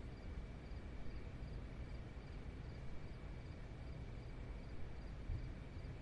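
Quiet background ambience: a faint low hum and hush, with a soft high chirp repeating roughly every half second.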